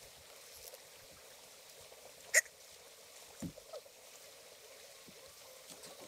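Concrete blocks being carried and handled: one sharp click about two seconds in, then a couple of soft thuds a second later, over faint outdoor background.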